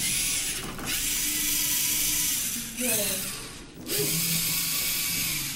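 LEGO robot's small electric motors and gears whirring as it drives, dipping briefly twice and starting up again with rising whines.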